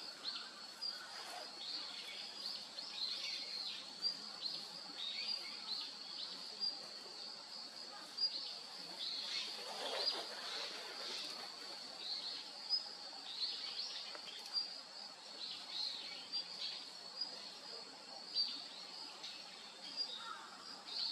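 Female Daurian redstart calling: short, thin, high notes repeated every second or two over a steady background hiss. About halfway there is a brief, louder, lower sound.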